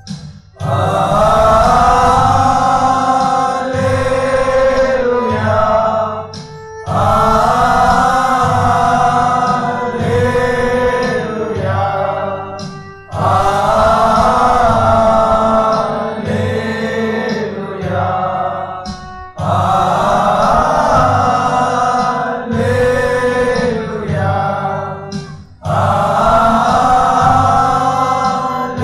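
A group of voices singing a Christian devotional song together over keyboard accompaniment and a steady beat. The phrases last about six seconds each, with short breaks between them.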